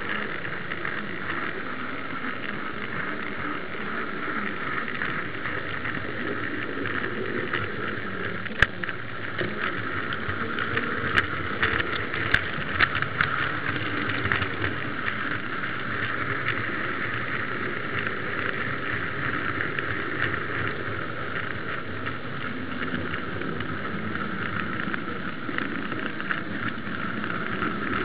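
H0-scale model tram and goods wagon running along the track, heard from on board the wagon: a steady whirring rattle of small motor and wheels on rail, with a few sharp clicks between about eight and thirteen seconds in.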